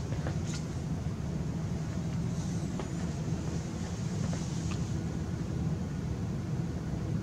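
Steady low room hum with a soft even hiss, and a few faint clicks scattered through it.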